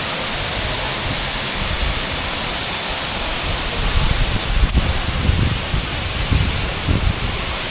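Large waterfall rushing, a steady loud hiss of falling water, with uneven low rumbling gusts in the second half.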